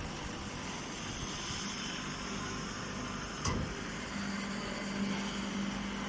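Machinery running steadily with a low hum that grows stronger about four seconds in, and a single sharp click about three and a half seconds in.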